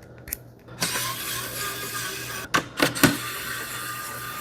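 Small electric screwdriver running steadily from about a second in, with a couple of light clicks partway, backing out the screw that holds the motherboard's M.2 SSD heatsink.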